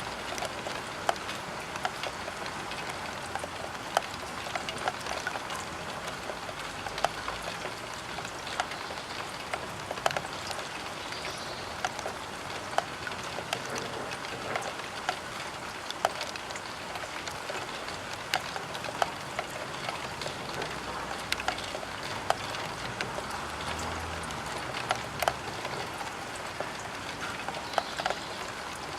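Rain falling on a roof window: a steady patter on the glass, with frequent sharp ticks of single drops striking at irregular intervals.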